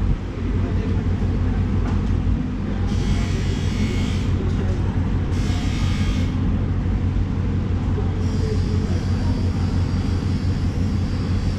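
Steady low mechanical rumble, like machinery or an engine running, with two short spells of hiss in the middle and a faint high whine joining in for the last few seconds.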